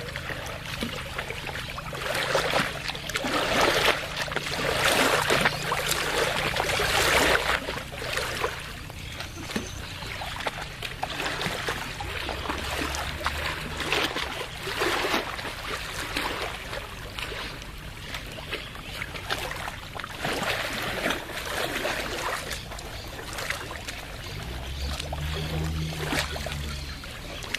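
Lake water lapping and splashing in small waves, in irregular surges that are stronger in the first several seconds, over a faint low steady hum.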